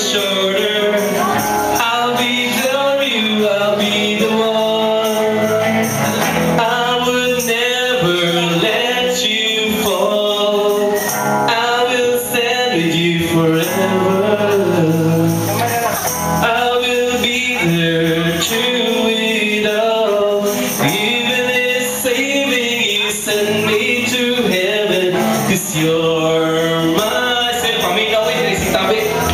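Small rock band playing live: a male lead singer sings into a microphone over drums and cymbals, electric guitar and bass guitar.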